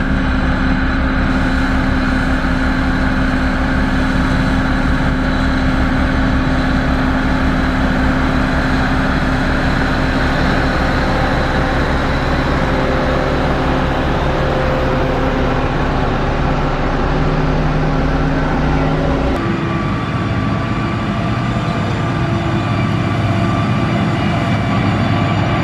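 Motor grader's diesel engine running steadily at working load. About 19 seconds in the engine note changes abruptly, the deepest part dropping away.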